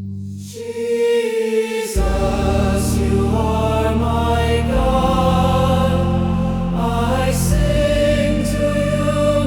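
Slow choral worship music: held, sustained chords that change slowly, with a deep bass coming in about two seconds in.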